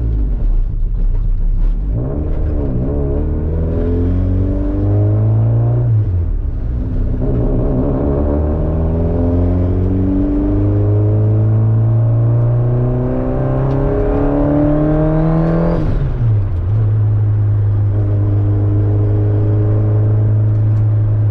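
Honda D-series four-cylinder engine pulling hard through the gears, heard from inside the car: it climbs in pitch, drops at a shift about six seconds in, climbs for a long stretch, drops at a second shift about sixteen seconds in, then settles into a steady cruise.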